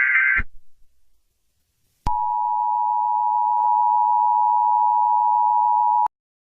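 Emergency Alert System tones. The end of a screeching digital SAME header burst stops about half a second in. After a short silence, the steady two-tone EAS attention signal sounds for about four seconds and cuts off suddenly.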